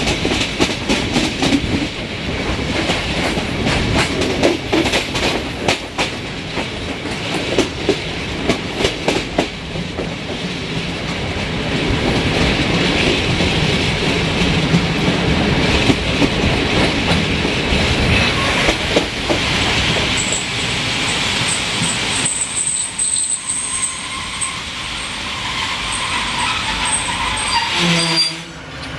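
Passenger train riding along, heard from an open coach window: steady rolling rumble and rushing air, with wheels clicking rapidly over rail joints, most densely in the first ten seconds. In the later part a thin, high wheel squeal sounds above the running noise.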